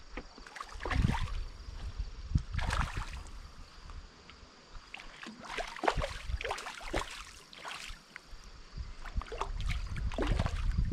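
Someone wading through a shallow stream: water sloshing and splashing around the legs at irregular moments. A low, uneven rumble of wind runs on the microphone underneath.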